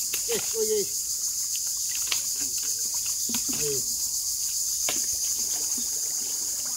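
A steady high-pitched chorus of insects, with wet splashes and slaps from hands, fish and water in shallow mud, and a couple of short voice sounds.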